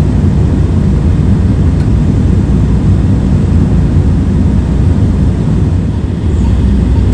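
Hitachi excavator's diesel engine and hydraulics running steadily, heard from inside the cab while the bucket is worked in a trench.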